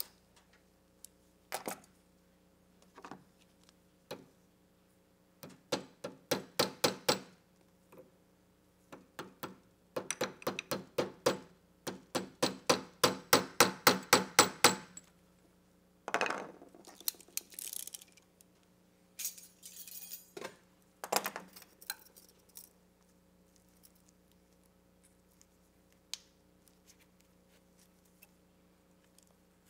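Band clamp on a CV axle boot being tightened and secured with a banding clamp tool: sharp metallic clicks, then a longer, even run of taps about four a second, then a few scraping clinks near the middle.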